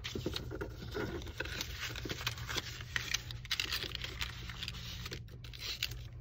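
Paper rustling and scraping in short irregular scratches as a strip of orange paper is slid over and under the slits of a black paper loom and pushed into place, over a faint steady low hum.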